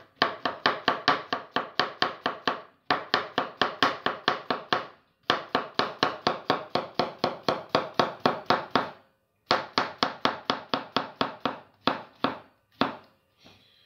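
Kitchen knife slicing a zucchini into rounds on a wooden cutting board: quick, even knocks of the blade on the board, about five a second, in runs of a few seconds with short pauses, slowing to a few separate cuts near the end.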